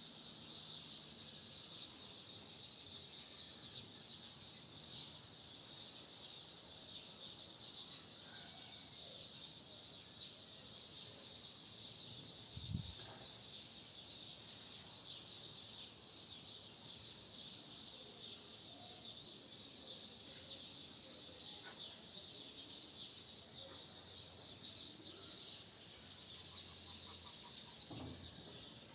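Steady high-pitched insect chirring, with a few faint short animal calls and one low thump about 13 seconds in.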